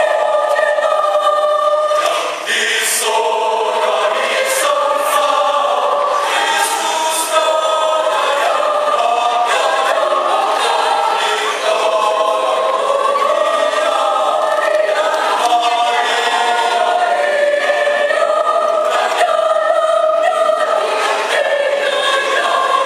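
A mixed choir of men and women singing a Christmas hymn in parts: held chords, with short breaks between phrases.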